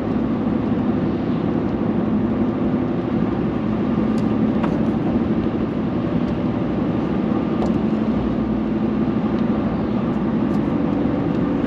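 Steady road and engine noise inside a moving truck's cabin, a constant drone with a few faint ticks.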